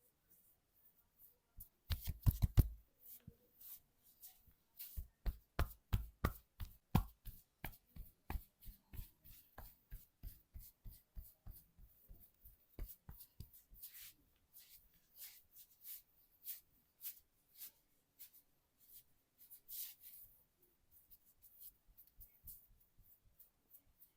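Percussive massage: hands striking a body in quick slaps and chops. A rapid flurry comes about two seconds in, then an even run of about three to four strikes a second that grows lighter toward the end.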